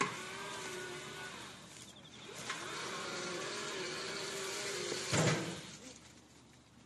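Electric motor of a battery-powered three-wheeled orchard lift cart whining steadily as the machine moves. There is a short run at the start, then a longer one from about two and a half seconds in, ending in a loud clunk just after five seconds.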